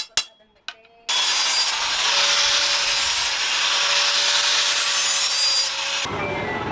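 A last sharp strike, then a steady abrasive grinding of a powered tool on the steel blade for about five seconds, with a faint whine in it. Near the end it gives way to a duller, lower running noise.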